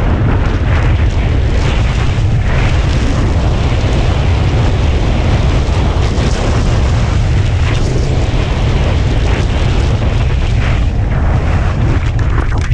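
Heavy wind buffeting on the microphone of a skier's body-worn camera during a fast downhill run: a steady, loud, deep rumble, with the skis scraping over the snow.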